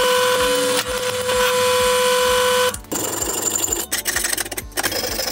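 A hole saw in a pillar drill cutting through the steel pipe of an exhaust cutout valve, with a steady high-pitched metal squeal. The squeal stops after a little under 3 seconds. After that, a hacksaw cuts the same pipe with rasping back-and-forth strokes.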